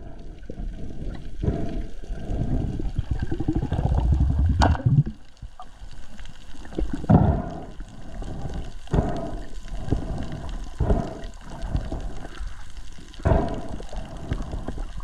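Muffled underwater sound through an action camera's housing: water washing and gurgling in low swells every couple of seconds, with one sharp click a little under five seconds in.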